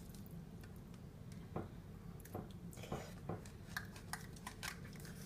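A fork scraping and clicking faintly against a Jell-O cup and bowl as the Jell-O is scooped out: a scatter of short, irregular clicks through the middle and latter part.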